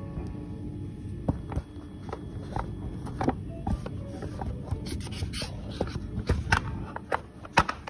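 Stainless-steel surgical instruments (ring-handled clamps, scissors and forceps) clinking and scraping against one another as they are handled and sorted on a towel-covered tray: a steady run of short metallic clicks, with several louder clinks in the second half.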